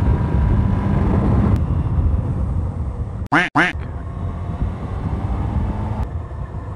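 1998 Yamaha YZF-R1's inline-four engine running steadily as the bike rides along. A little past three seconds in, the engine sound cuts out for a moment around a short inserted comedy sound effect: two quick quack-like honks.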